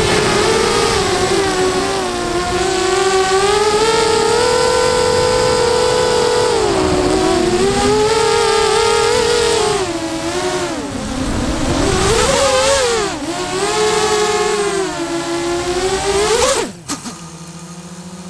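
FPV quadcopter's brushless motors and propellers whining, heard from its onboard camera, the pitch rising and falling with the throttle. Near the end the whine drops off sharply with a couple of clicks as it comes down on the grass, leaving a lower, steady hum.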